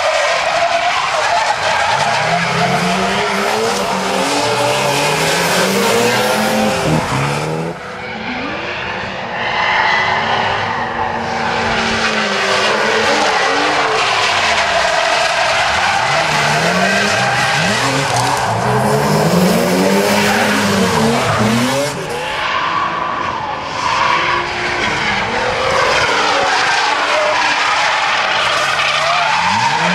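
Drift cars sliding in tandem: high-revving engines rise and fall in pitch again and again while the rear tyres squeal and skid. The sound dips briefly about 8 seconds in and again about 22 seconds in.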